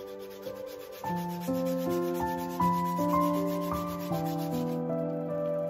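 Sandpaper rubbed by hand in quick back-and-forth strokes along the edge of a wooden chipboard box, smoothing it so it won't give splinters. The rubbing stops a little before the end. Background music plays throughout, a melody of held notes.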